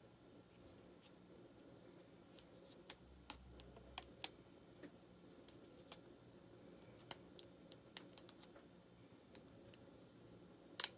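Scattered faint clicks and snaps of rubber bands being wound and stretched around the ends of a stack of wooden popsicle sticks, with one sharper snap just before the end.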